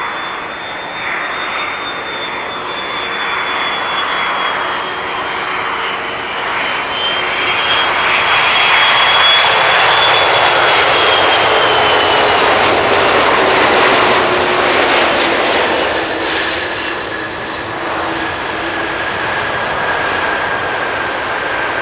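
Airbus A330-200 airliner's jet engines whining as it lands, growing louder as it passes close by about halfway through, with the whine dropping in pitch as it goes past, then running on more steadily as it rolls out along the runway.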